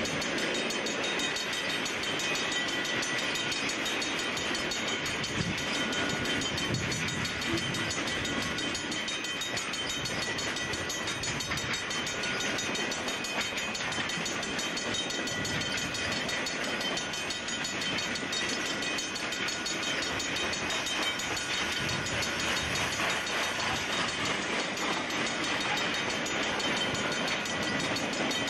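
Freight train cars rolling past at close range: a steady rattle and clatter of steel wheels and trucks on the rails, with thin high-pitched ringing tones in it.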